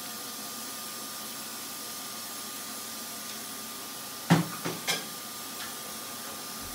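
Steady hiss of background noise with a faint hum. About four seconds in comes a sharp knock, then two lighter clicks in quick succession.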